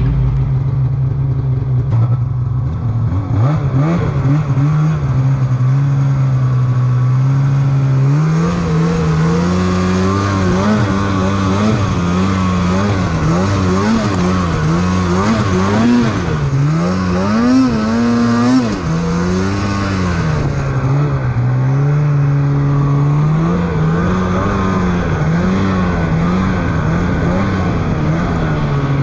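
Polaris snowmobile engine running hard while the sled is ridden through deep powder. It holds steady at first, then revs up and down again and again as the rider works the throttle.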